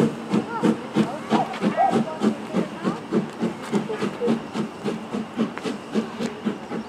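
Small steam tank locomotive pulling away, its exhaust chuffing in an even beat of about four a second over a hiss of steam, growing slightly fainter as it draws off.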